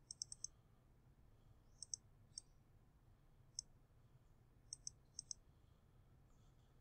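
Computer mouse button clicks: a dozen or so short, sharp clicks in small groups, several in quick pairs like double-clicks, as text is selected and highlighted.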